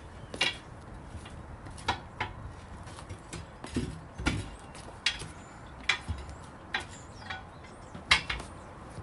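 Hand tools clinking and knocking on metal, a dozen or so sharp irregular taps and clanks, during work on a truck tire and wheel.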